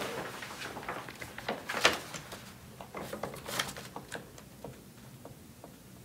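Soft handling and movement sounds in a quiet room: scattered light clicks and rustles, the most distinct about two seconds in and again about three and a half seconds in, fading toward the end.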